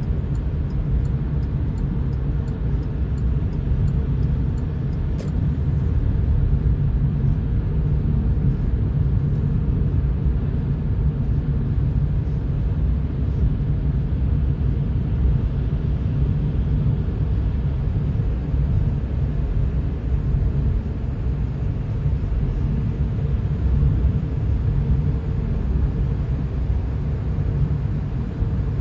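Car driving on the road: a steady low rumble of engine and tyre noise.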